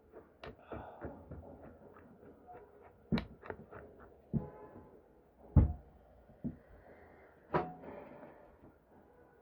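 Scattered metallic clicks and knocks of hand tools and parts being handled during repair of a portable bag closer machine. Some strikes ring briefly, and the loudest is a heavy knock about five and a half seconds in.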